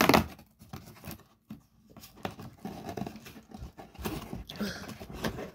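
Cardboard advent calendar door being pulled open by hand and its contents pulled out: a sharp tap at the start, then irregular rustling and scraping of card.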